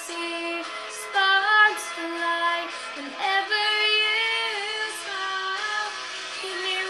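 A young female voice singing a pop melody, with long held notes that slide between pitches.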